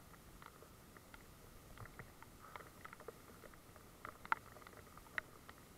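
Faint, irregular taps of falling raindrops, a few a second, with two sharper ticks about four and five seconds in.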